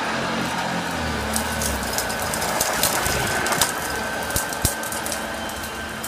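1971 Hoover Junior 1354A upright vacuum cleaner running on carpet with a steady drone and a steady high tone, as chunks of dirt and fluff click and rattle through it while it picks them up.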